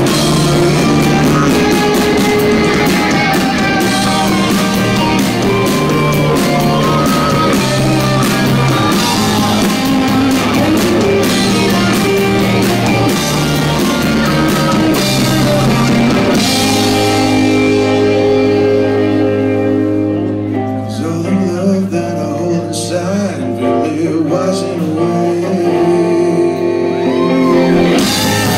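Live rock band with electric guitar, bass and drums, and a man singing. About two-thirds of the way through, the band drops back to a held low bass note with sparse guitar and voice, then comes back in full just before the end.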